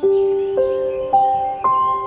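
Soft background music: four struck, ringing notes climbing step by step in pitch, about two a second, in the manner of a glockenspiel or chimes.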